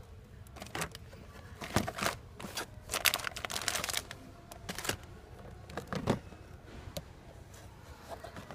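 Plastic blister packs of action figures being handled and shifted against one another: irregular crinkles and clacks, thickest about three seconds in and again about six seconds in.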